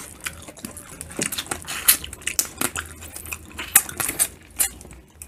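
Shrimp and crab shells being cracked and peeled by hand, with irregular crackles and clicks, along with close-up eating as the meat is sucked from the shell.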